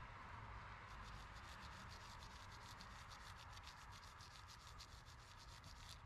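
Small brass wire brush scrubbing a ground wire's metal ring terminal in fast back-and-forth strokes, several a second, starting about a second in, cleaning it before it is attached.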